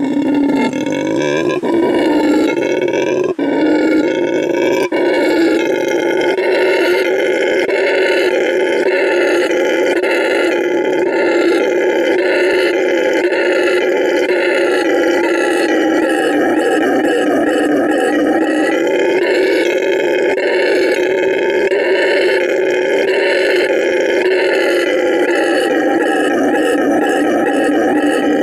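Male red howler monkey howling loudly: a long, continuous roar, broken a few times in the first five seconds and then held without a pause. He is howling to mark his territory.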